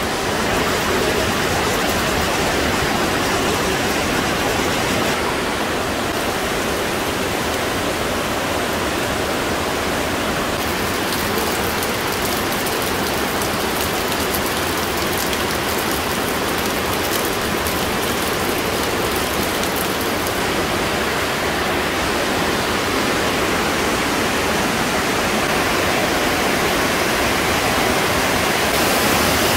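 Underground stream rushing and cascading down the rock inside a limestone cave, a steady rush of water that grows slightly louder near the end.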